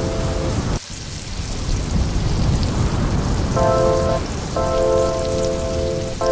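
Onions and tomatoes sizzling in hot oil in a wok, a steady crackling hiss that dips briefly about a second in. Background music with held notes plays over it in the second half.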